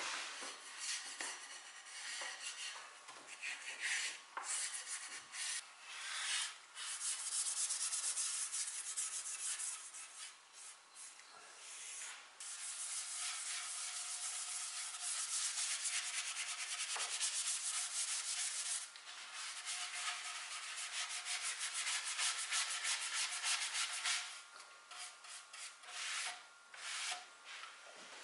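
Brush strokes on wood: a dry, scratchy rubbing as water-based stain is brushed onto the chair's frame and plywood seat. Short separate strokes at first, then a long steady spell of brushing in the middle, tailing off into a few short strokes near the end.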